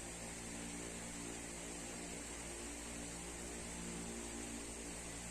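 Steady electrical hum with an even hiss of background noise, unchanging throughout and with no distinct knocks or other events.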